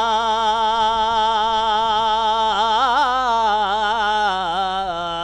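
A male voice singing a Bengali Islamic gojol (devotional song), holding one long note with vibrato. There is a short ornamental turn about two and a half seconds in, and the pitch settles slightly lower near the end.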